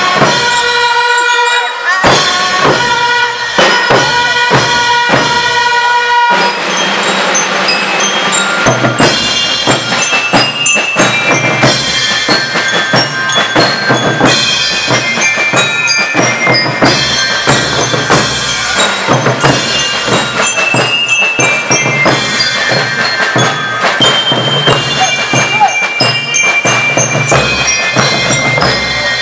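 School rhythmic band (banda rítmica) playing: bell lyres ring out the melody over snare and bass drums. It opens with held lyre notes punctuated by regular drum hits, and about six seconds in the full band comes in with dense drumming.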